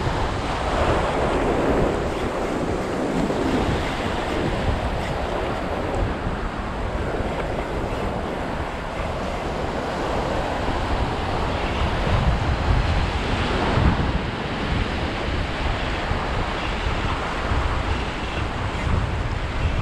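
Small surf breaking and washing up a sandy beach, with wind buffeting the microphone in a low, uneven rumble.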